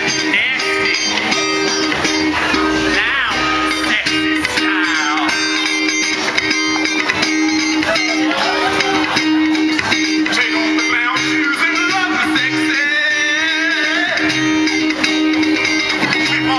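A band playing live, led by a strummed guitar, with a steady held note running underneath.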